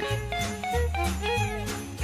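Upbeat background music, with jingle bells shaken on the beat about four times a second over a moving bass line and a melody.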